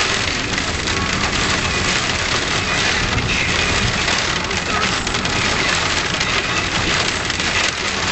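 Hail with rain drumming steadily on a hard surface: a dense, continuous patter of many small ticks.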